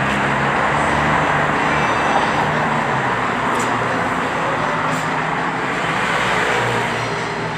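Handheld heat gun blowing steadily at a car's rear window, heat-shrinking window tint film onto the glass; a steady rushing hiss with a low motor hum at first.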